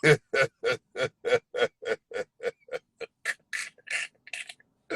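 A man laughing in a long run of short, rhythmic bursts, about four a second, tailing off toward the end.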